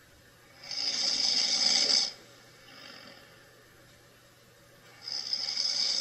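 A sleeping man snoring: two loud snores about four seconds apart, each lasting about a second and a half. Each loud snore is followed by a fainter breath.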